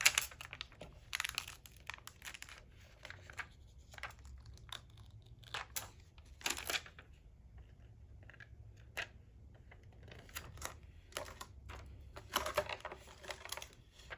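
Adhesive vinyl and clear gridded transfer tape being handled and peeled, in short irregular crinkles and rustles. The loudest come at the very start and about a second before the end.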